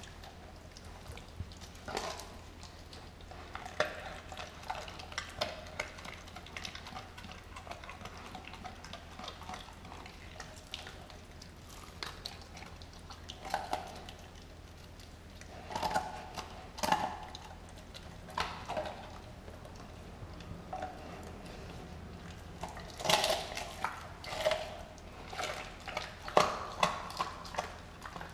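Doberman licking and gnawing at a whole raw turkey: irregular wet smacks, slurps and clicks of mouth and tongue on the raw skin, with louder clusters of chewing about halfway through and again near the end.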